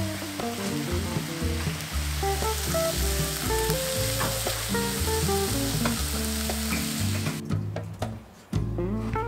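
Background guitar music with a bass line, overlaid by a steady sizzling hiss that cuts off suddenly about seven seconds in; the music then drops out briefly and comes back.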